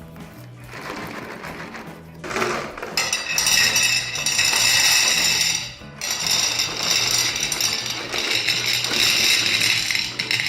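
Meat grinder motor running in two long stretches, with a loud high whir that stops briefly around the middle, over background music.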